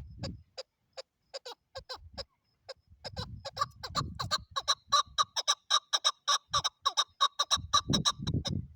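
Female chukar partridge calling: a long series of short, sharp clucking notes, sparse at first, then quicker and louder from about three seconds in, at roughly four or five notes a second. A low rumbling noise runs under the start and the end.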